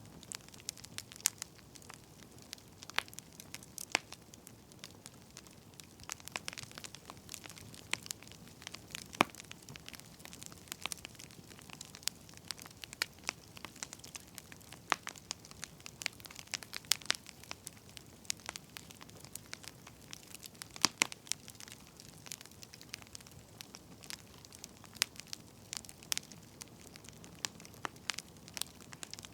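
Wood fire crackling, with irregular sharp pops and snaps over a soft steady hiss.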